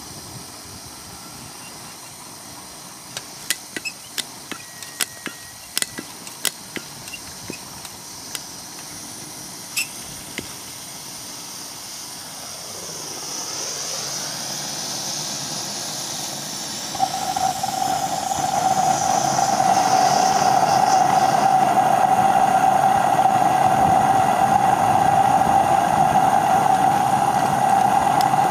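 A paraffin-heated Philips MP 1002 CA Stirling engine generating set being started. There are a dozen or so sharp clicks in the first third, then a high hiss builds around the middle, and over the last third a steady humming tone sets in and holds as the set runs.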